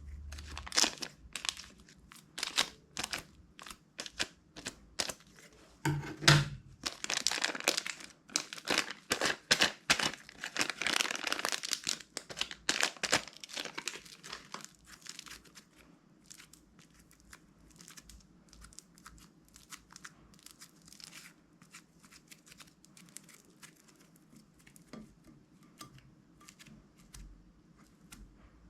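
Hands squishing, folding and stretching slime, giving a stream of wet crackles and pops. It is busiest in the first half, with one heavier thump about six seconds in, and gets fainter and sparser after about fifteen seconds.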